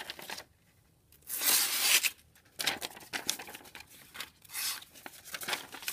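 Sheet of paper rustling and tearing as a fixed-blade knife is pushed through it, the blade snagging and ripping the paper instead of slicing it cleanly. A loud tear about a second and a half in, then a run of shorter, softer rips and rustles.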